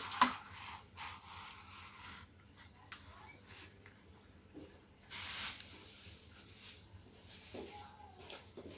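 Low-level handling noises as the model engine on its wooden base is moved and tipped over on a cloth-covered table: a few light knocks and a brief scraping rustle about five seconds in.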